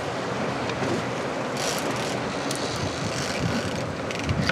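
Steady wind and sea noise aboard a sport-fishing boat at sea, with wind buffeting the microphone.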